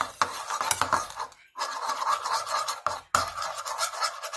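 A utensil scraping and stirring against a bowl, in three stretches of a second or so, with brief pauses between them.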